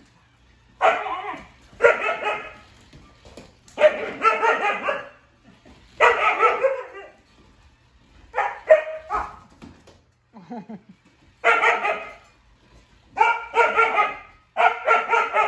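Siberian huskies barking in repeated bursts of about a second each, with short gaps between them.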